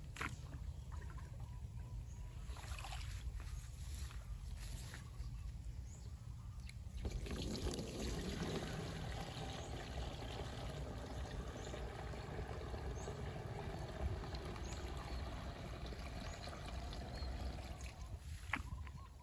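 Water trickling, beginning about seven seconds in, over a steady low rumble.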